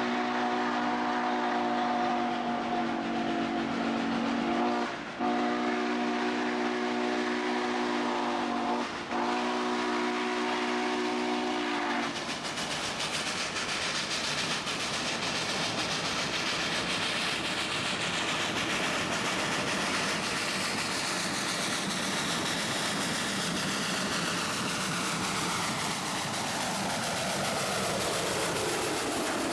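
Steam locomotive chime whistle sounding a long, multi-tone blast that is broken briefly twice and stops about twelve seconds in. After it comes the loud, rapid exhaust of the 1916 Baldwin 2-8-0 working hard as it approaches and passes close by.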